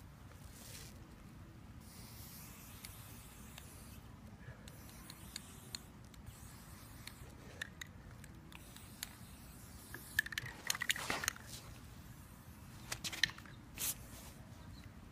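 Aerosol spray paint can hissing in short bursts. A cluster of clicks and rattles comes about ten seconds in.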